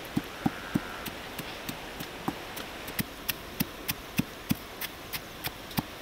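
A pestle pounding red chilies and salt in a stone mortar: a steady run of sharp knocks, about three a second.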